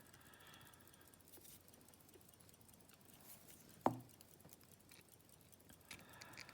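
Quiet handling of small metal lock parts, with faint ticks and one sharp metallic click about four seconds in, as pins are taken out of a Yale pin-tumbler cylinder with tweezers.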